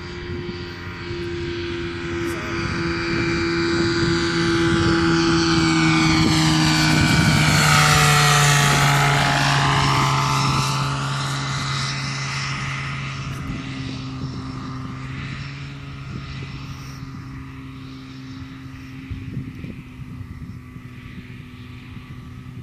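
Hurricane ultralight's engine and propeller droning as it flies low past, getting louder to a peak about eight seconds in, the pitch falling as it goes by, then fading as it heads away to land.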